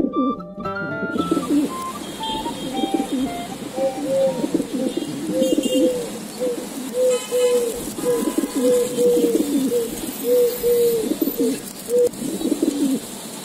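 Domestic pigeons cooing: a long run of short, throaty coos repeated over and over. A few plucked music notes play in the first second.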